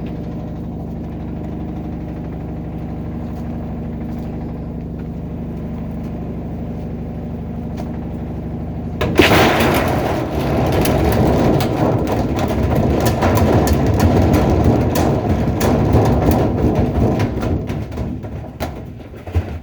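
Washing machine, its agitator removed, spinning with a steady motor hum; about nine seconds in it breaks suddenly into loud, violent clattering and banging full of knocks as it shakes itself apart at speed, dying away near the end.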